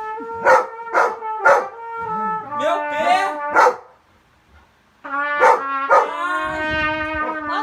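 A horn plays long held notes while a dog barks sharply along with it, about twice a second, and yowls with a bending pitch in the middle. The playing breaks off briefly about four seconds in, then the held note and the barking resume.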